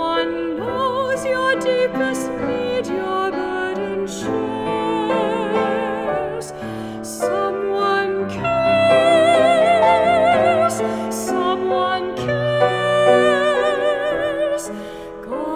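A woman singing a solo song with vibrato, accompanied by a grand piano.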